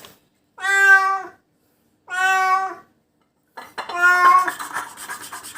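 Domestic cat meowing in distress: three long, drawn-out cries about a second and a half apart. The owner believes it has been bitten by a venomous creature.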